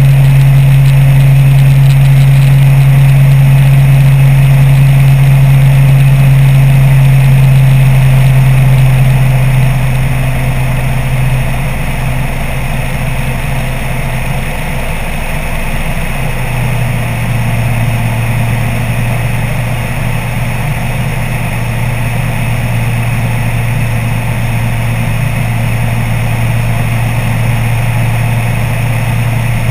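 Apollo Jet Star microlight trike's engine and propeller droning steadily in flight. About ten seconds in the drone drops in level, and by about sixteen seconds it settles at a lower pitch as the revs come down.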